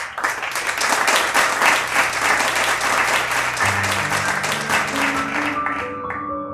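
Applause from a small audience, clapping steadily and dying away about six seconds in. Soft music with held notes fades in about halfway through and carries on after the clapping stops.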